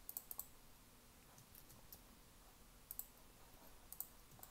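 Faint clicking of a computer mouse and keyboard: a quick run of three or four clicks at the start, a pair about three seconds in, then single clicks near four seconds and at the end.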